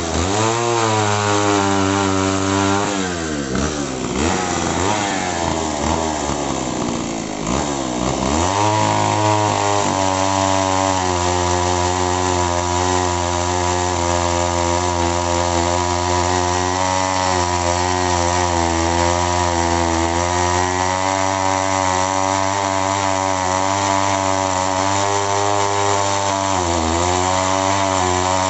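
Two-stroke chainsaw bucking eucalyptus logs into firewood. The revs drop and climb again a few times over the first eight seconds or so, then the saw runs at steady high speed with a slight waver, dipping briefly once near the end.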